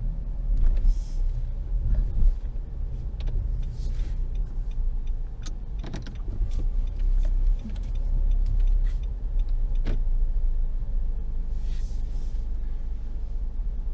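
Low rumble of a car rolling slowly through an underground car park, heard from inside the cabin. Scattered light clicks, with two brief high hissing sounds about a second in and near the end.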